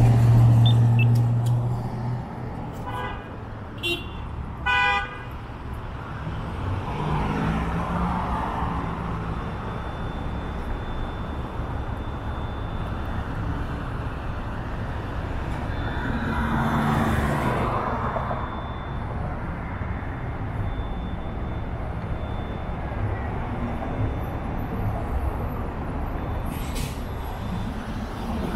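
Downtown street traffic: a vehicle's engine hums loudly and low as it passes close at the start. A short car horn toot sounds about five seconds in, with a fainter one just before it. Traffic noise continues, with more vehicles passing.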